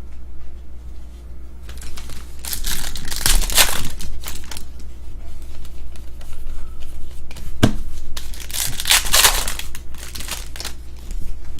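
Trading card pack wrappers being torn open and crinkled, in two bouts of ripping and rustling, with a sharp click between them.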